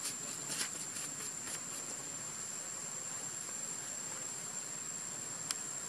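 A steady, high-pitched insect drone over a soft outdoor hiss, with a few light clicks in the first second or so and one sharp click near the end.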